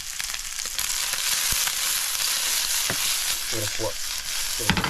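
Chunks of duck meat sizzling in oil in a small frying pan on a portable gas camp stove, a steady hiss with small crackles that grows louder about a second in.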